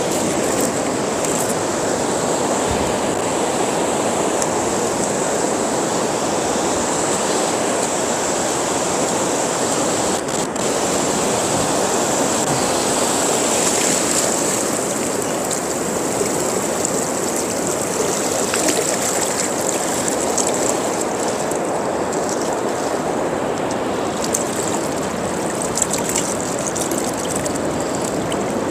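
Shallow ocean surf swirling around hands and razor clams as they are rinsed in the waves, picked up close by a wireless clip-on microphone: a steady rush of moving water with a few brief splashes.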